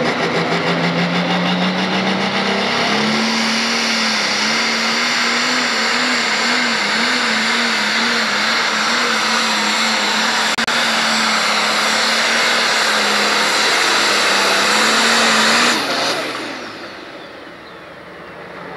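Pro Stock pulling tractor's turbocharged diesel engine at full throttle dragging a weight-transfer sled: the engine note climbs over the first few seconds, then holds with a slight wavering. A few seconds before the end the throttle is cut and the engine sound drops away quickly.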